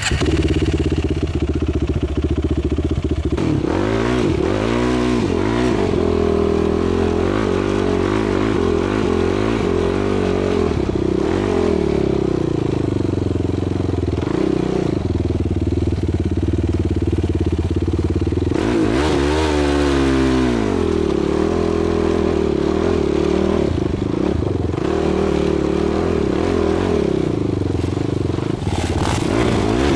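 Sport quad (ATV) engine running as it rides over sand, a steady drone with the revs rising and falling a few seconds in, again about two-thirds through, and once more at the end.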